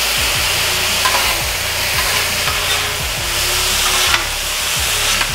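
Stir-fried steak and vegetables in sauce sizzling on the hot steel top of a Halo Elite4B griddle as two metal spatulas toss and scrape them, with a few short spatula clicks against the plate. The sizzle is a steady, loud hiss.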